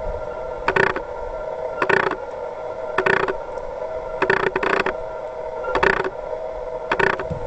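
A steady mechanical whine at several pitches, with a short scraping, grinding stroke repeating about once a second.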